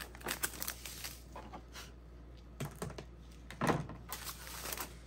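Paper seed packets rustling and tapping as a stack is handled and shuffled through by hand, a string of irregular light clicks and crinkles with a louder rustle about three and a half seconds in.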